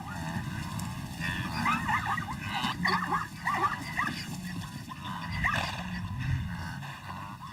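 Animal calls: a run of many short, high yelps or whimpers that bend up and down in pitch, over a steady low rumble.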